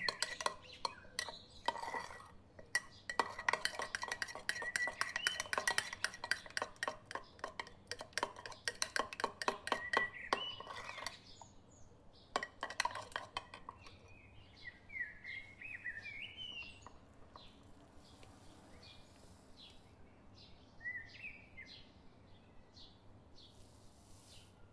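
A metal spoon beating cream in a ceramic mug, clinking rapidly against the mug's sides so that the mug rings. The clinking goes on for about eleven seconds, comes back in a short burst, then gives way to a few scattered taps.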